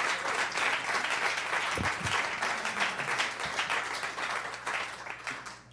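Audience applauding after a song, the clapping dying away near the end.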